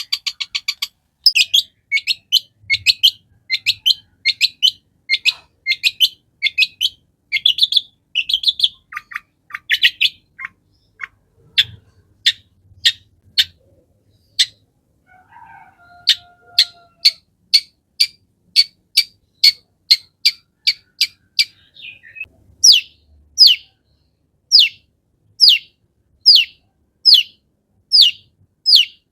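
Long-tailed shrike (cendet) singing: a string of sharp, repeated chirps, each falling quickly in pitch, about one to two a second, broken by a short pause partway through.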